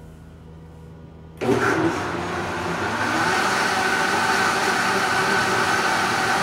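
High-speed countertop blender switched on about a second and a half in. Its motor spins up with a rising whine, then runs steadily at high speed, blending a thick chocolate batter to whip air into it.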